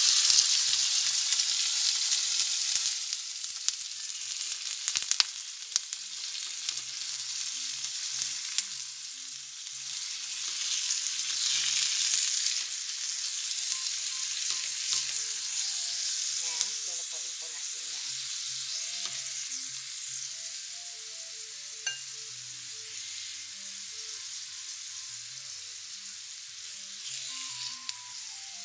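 Raw chicken pieces sizzling in hot oil with onion and garlic in a ceramic-coated frying pan. The hiss is loudest as the chicken goes in, swells again partway through, and eases toward the end, while a spatula stirs and clicks now and then against the pan.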